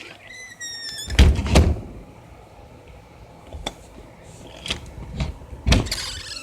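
A short high-pitched squeal, then two heavy thumps about a second in, followed by a few scattered knocks and another loud thump near the end.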